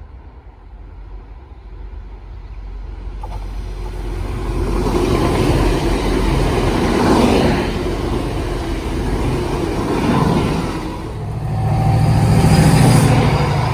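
A diesel train approaching and passing, its rumble growing louder over the first five seconds, with a steady low engine note rising again near the end.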